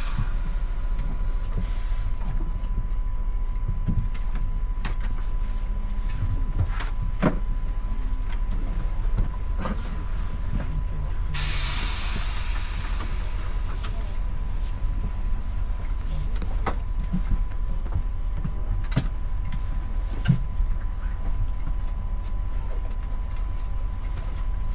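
Setra 516 coach's diesel engine idling with a steady low rumble, heard from inside the cab, with scattered light clicks. About eleven seconds in, a burst of compressed-air hiss lasts two to three seconds.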